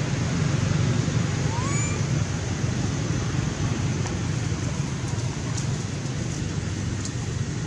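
Steady low outdoor rumble of wind and distant traffic noise, with one brief rising high chirp about one and a half seconds in.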